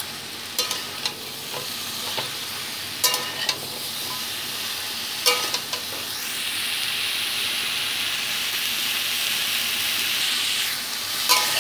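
Mixed vegetables sizzling in mustard oil in a metal kadai while a metal spatula stirs them, scraping and clinking against the pan several times. The sizzle grows steadily louder from about halfway through.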